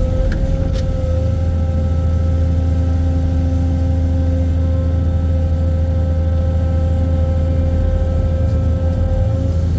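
Heavy excavator engine running steadily under load: a deep, constant drone with a steady high-pitched whine over it.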